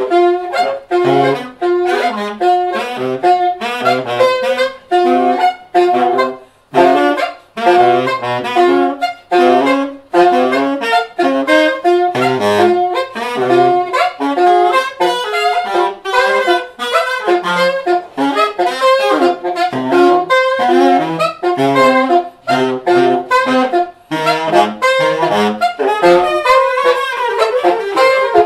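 Alto and tenor saxophones improvising together in free jazz: a dense stream of short, quickly changing notes with many brief gaps, one longer pause about six seconds in.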